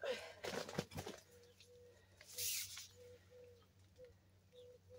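Nylon tent wall rustling and crinkling as it is handled, loudest in the first second and again briefly about two and a half seconds in. Behind it, a faint short call repeats at one steady pitch about twice a second.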